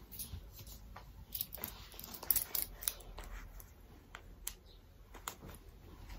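Small metal clips and buckle hardware clicking and clinking as dangling straps are fastened to a grommet belt at the waist: a string of faint, irregular sharp clicks.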